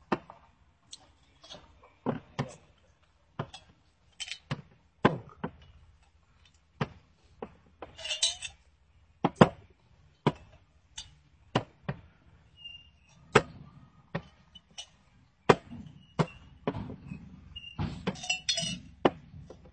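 Small glass liquor bottles clinking as they are pulled one by one from jacket pockets and set down on a table among rows of other bottles. There are sharp, separate clinks, about one a second, unevenly spaced, with a couple of short clattering clusters.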